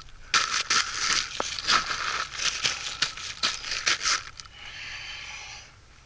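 Plastic sheeting crinkling and rustling as it is handled, a rapid run of crackles for about four seconds, then a softer steady hiss for about a second near the end.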